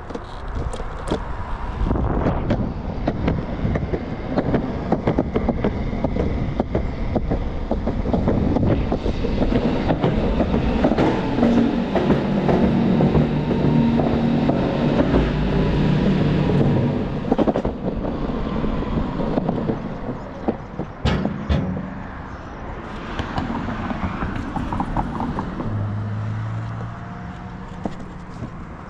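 Electric skateboard rolling over pavement: a steady rumble of wheels on the road surface with a rapid run of clicks and knocks as the wheels cross cracks and seams, growing louder through the middle.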